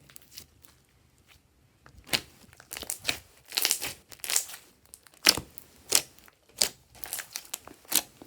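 Glossy slime being squeezed and stretched by hand, giving sticky crackling pops. The pops start about two seconds in and come in a quick run of sharp bursts, about one every half second.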